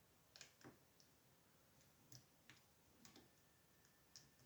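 Faint, irregular clicking of lock picks working the pins inside an American 5-pin brass padlock cylinder, about seven small sharp ticks spread unevenly.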